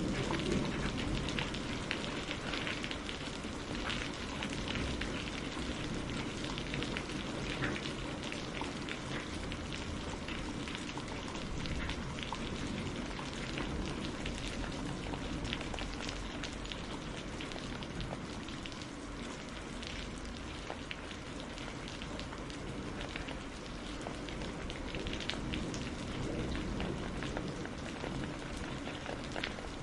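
Steady rain falling on a surface, with many small drops ticking individually over an even hiss.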